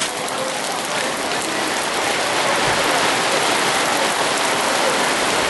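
Steady rain falling on a wet, puddled road.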